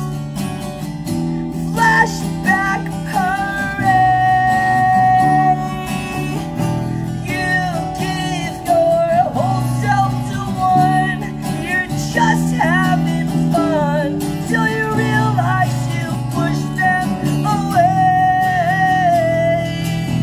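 Live acoustic rock song: a man sings a high, held melody that wavers on its long notes, over acoustic guitar chords.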